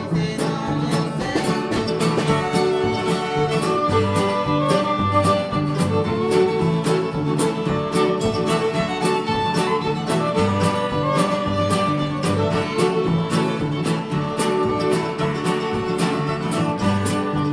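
Upbeat background music with a quick, steady beat.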